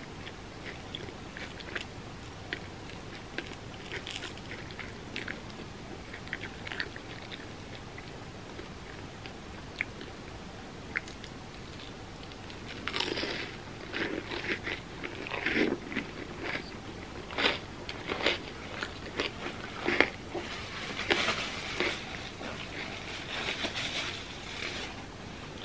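Someone eating crispy fried mochi bread: sparse small crunches and chewing clicks at first, then louder, denser crunching bites from about halfway through.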